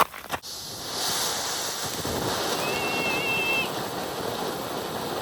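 Ground fountain firework spraying sparks: a couple of sharp pops at the start, then a steady hiss from about a second in. A brief high squeal sounds about halfway through.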